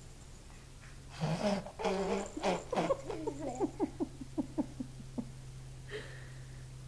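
A person laughing: a loud burst about a second in that trails off into a run of short, falling ha-ha pulses, about four or five a second, fading out.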